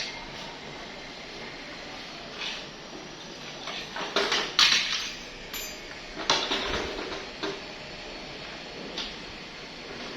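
Lakoni 160A transformer stick welder being tested after repair: the arc is struck in two short sputtering bursts, about four and six and a half seconds in, with a few short metallic knocks between.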